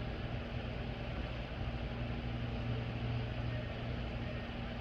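Steady low mechanical hum with no breaks, holding a low droning tone under a broad hiss.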